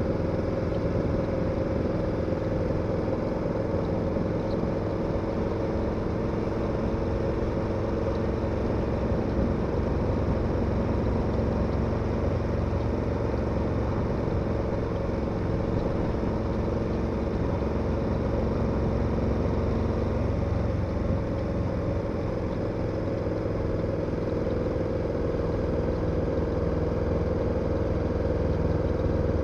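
KTM 1290 Super Adventure's V-twin engine running steadily at an even, unchanging engine speed.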